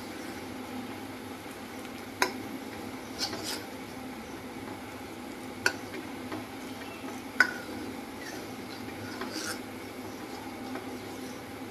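Steel ladle stirring milk as it simmers and reduces in a brass kadai, clinking sharply against the pan several times over a steady low hiss of the cooking milk.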